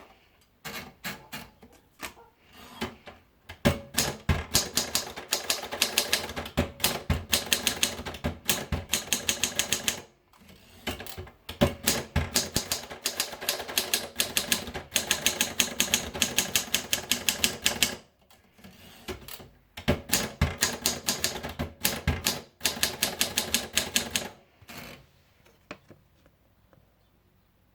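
Adler Gabriele typewriter being typed on: runs of rapid keystrokes, several a second, with short breaks about ten and eighteen seconds in, stopping a few seconds before the end.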